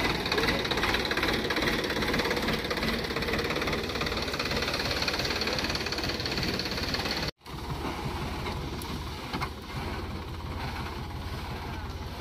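Sonalika tractor's diesel engine running with an even low beat; the sound cuts out for a moment about seven seconds in, then carries on a little quieter.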